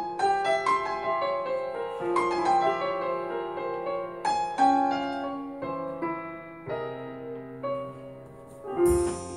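Piano music played back through a home stereo system's speakers, picked up by a cell phone's microphone in the room: a run of struck notes that ring and fade. About nine seconds in the music changes suddenly to a fuller passage with a hiss in the highs.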